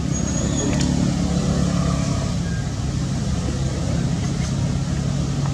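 A motor vehicle engine running steadily nearby, a low even hum.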